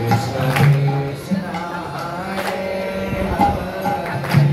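Hindu devotional music: singing over a hand drum, with sharp drum strikes now and then.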